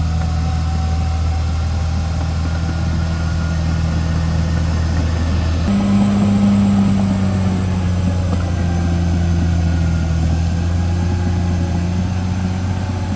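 CAT D6R XL bulldozer's diesel engine running steadily; about six seconds in its note steps up slightly and then holds.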